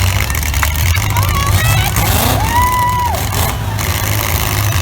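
Demolition derby car engines rumbling steadily, heard from the grandstand. About halfway through, a single drawn-out high-pitched call rises over them, holds for about a second and falls away.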